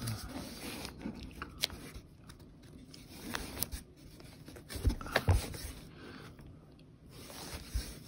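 Magazines being flipped forward by hand in a cardboard box: paper rustling and sliding, with scattered small clicks and scrapes, a little louder about halfway through.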